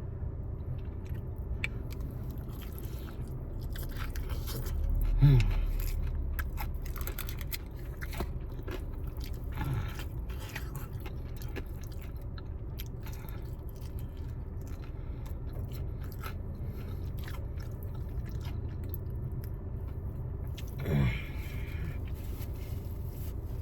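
Close-up chewing and biting of chicken wings, with many short wet clicks and crunches as the meat is gnawed off the bones. A few brief voiced murmurs break in about 5, 10 and 21 seconds in.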